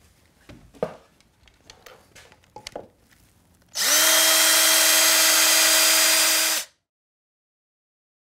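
Cordless drill spinning up quickly and running at a steady high speed for about three seconds, then cutting off suddenly. Before it, a few light clicks and knocks.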